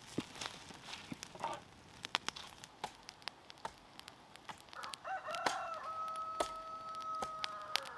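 A rooster crows once, starting about five seconds in: a short rising opening, then a long held note of about two and a half seconds. Scattered light clicks and rustles of handling run throughout.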